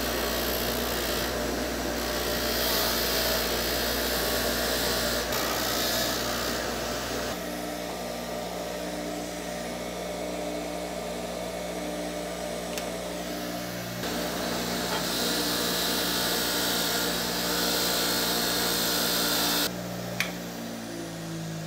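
Bench grinder running steadily while a steel ball peen hammer head is pressed against its wire wheel to strip off rust, a rough brushing noise over the motor hum in two long spells; the brushing stops about twenty seconds in.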